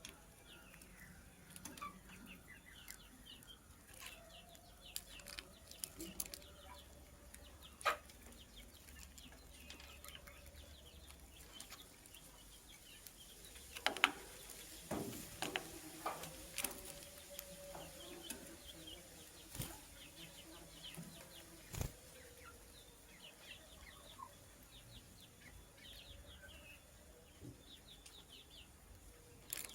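Lovebirds chirping faintly in short, scattered calls, with sharp clicks and knocks in between, a cluster of them about halfway through.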